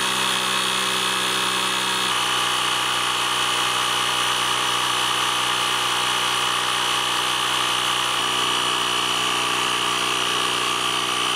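Parkside PKA 20-Li A1 20 V cordless tyre compressor running steadily under load, a loud even mechanical drone, as it pumps a car tyre up toward a preset 3 bar; it reads about 90 dB on a sound meter.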